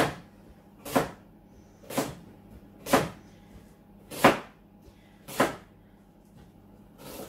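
Kitchen knife chopping a carrot into chunks on a chopping board: six sharp chops of the blade onto the board, about a second apart, then a fainter one near the end.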